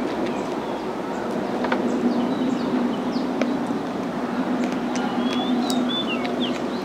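A steady low engine hum, with birds chirping over it, most clearly about five to six seconds in.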